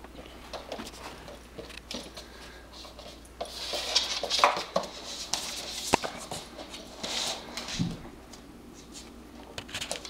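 Airedale Terrier puppy's claws clicking and scrabbling on a hardwood floor as she plays. There are scattered sharp taps, with a louder scuffling spell about a third of the way in and again about two-thirds through.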